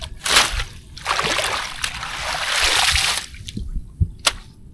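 Water splashing and sloshing for about three seconds, then a few sharp clicks near the end.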